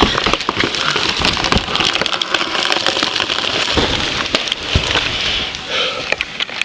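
Wood cracking and branches snapping in a dense rustling rush, with a few heavier thuds partway through, as a felled tree comes down.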